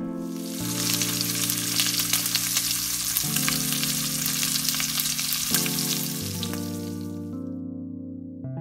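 Oil sizzling and crackling in an electric deep fryer as battered food on a bamboo skewer fries, over background music of sustained notes. The sizzling stops about seven seconds in, leaving only the music.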